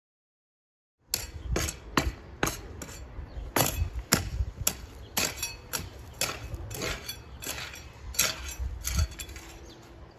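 A long-handled metal digging tool striking and scraping into sand and earth, a quick, uneven run of sharp hits, a few each second. It starts about a second in.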